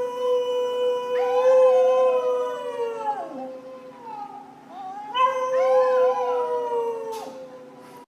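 A dog howling: two long, steady-pitched howls, the second starting about five seconds in, each with a second wavering voice howling alongside.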